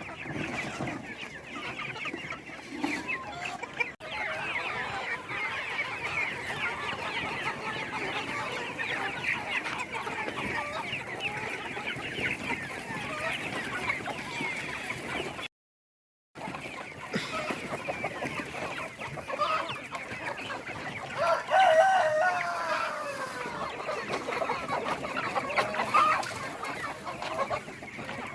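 A flock of chickens clucking and calling over one another continuously. One louder, drawn-out call stands out about two-thirds of the way through, and the sound cuts out completely for about a second midway.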